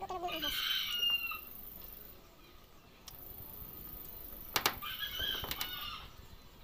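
Chicken calls, one falling in pitch in the first second and another about five seconds in, with a few sharp mouth clicks and sucking sounds from a santol seed being sucked clean.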